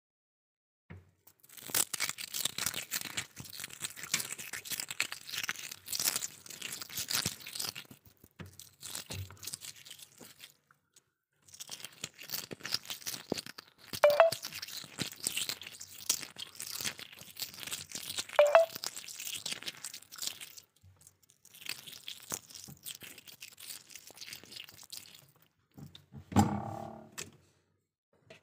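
Freezer frost and ice crunching and scraping in long bouts of dense crackling, with two sharp cracks partway through and a louder, deeper thump near the end.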